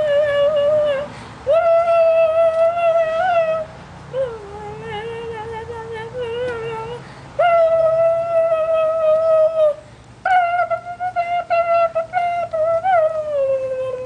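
A woman's high-pitched, wavering vocal call, a mock hummingbird call meant to draw hummingbirds to the feeder. It comes as about five long held notes, each a second or two, with little warbles. A softer, lower stretch comes in the middle, and the last note slides down near the end.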